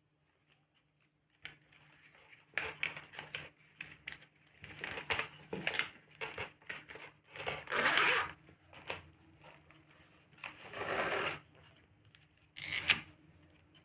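Handling noise: objects being rubbed, rustled and scraped by hand in irregular bursts, with a longer scrape about 8 s in, another about 11 s in and a sharp rustle near the end.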